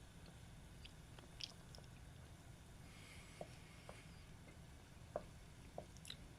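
Croquettes deep-frying in oil in a tempura pot: faint, scattered pops and crackles of the frying, over a steady low hum.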